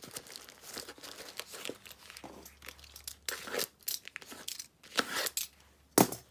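Plastic poly mailer bag being torn open by hand: irregular crinkling and tearing of the plastic, with one short, sharp, louder crackle about six seconds in.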